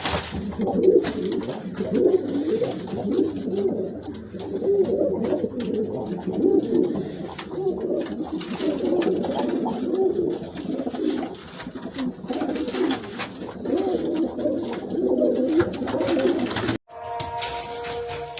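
Domestic pigeons cooing, many coos overlapping without a break. About seventeen seconds in, the cooing cuts off and a few steady musical tones begin.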